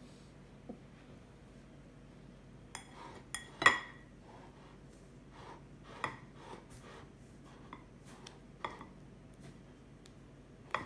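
Silicone spatula spreading cheesecake filling in a stoneware pie dish: scattered clinks and taps of the spatula against the dish, the loudest about three and a half seconds in.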